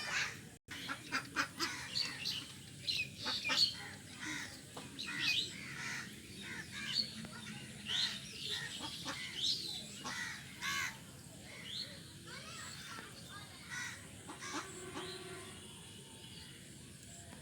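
Birds calling: a quick run of short, high chirping calls mixed with sharp clicks. The calls thin out and grow quieter toward the end.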